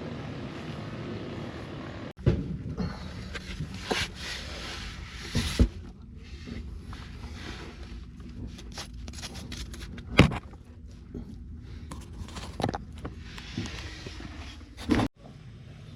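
Foundation repair work: scraping with scattered knocks and hard impacts of tools on soil and concrete, a loud strike about ten seconds in, in short clips cut one after another.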